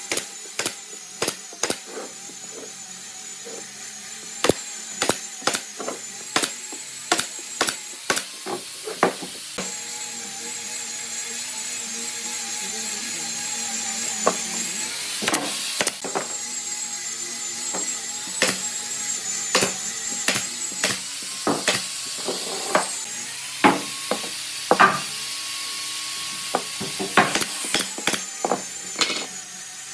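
Workshop sounds on wood: a small power tool's motor running with a steady high whine, under many sharp, irregular knocks and taps.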